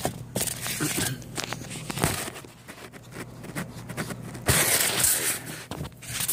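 Handling noise as the camera is moved and propped into place: irregular scraping, rustling and clicks, with a louder rasping scrape about four and a half seconds in.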